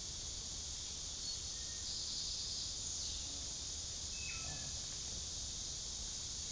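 Steady high-pitched insect chorus, with a single short bird call that drops in pitch about four seconds in.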